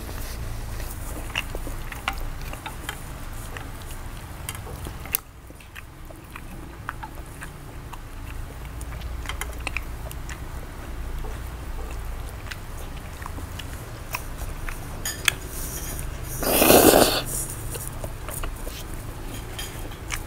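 Close-up eating sounds of spicy instant noodles and tteokbokki: chewing, with scattered light clicks of wooden chopsticks against a glass dish over a steady low hum. About 17 seconds in comes one short, loud rushing sound, the loudest moment.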